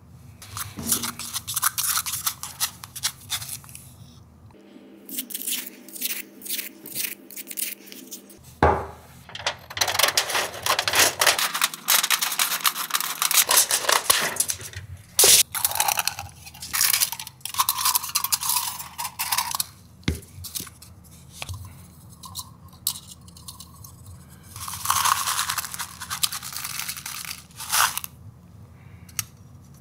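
Hand work with thin stainless steel foil and a metal spoon: shears cutting and crinkling the foil, and the spoon scraping and clinking against a glass bottle and cups, in irregular bursts with a few sharp clicks.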